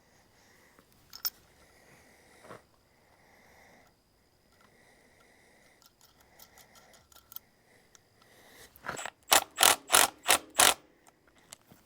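A hand ratchet wrench tightening a bolt: a few faint metal knocks, then, about three-quarters of the way in, a run of sharp, rapid ratchet clicks, about four a second.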